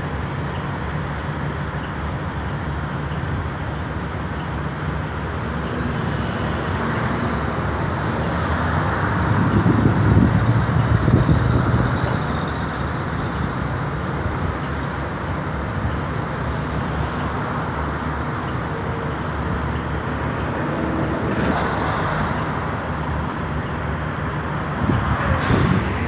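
City transit bus heard from inside, its diesel engine running at a steady low hum while road traffic goes by. The sound swells louder for a few seconds about ten seconds in, and there is a brief sharp noise near the end.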